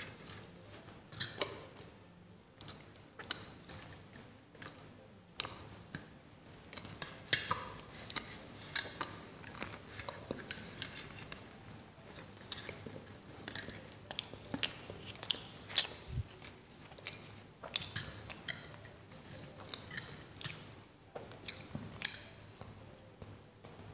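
Close-miked chewing of matar (pea-stuffed) paratha, with many short wet mouth clicks and crackles, and the rustle of flatbread being torn by hand.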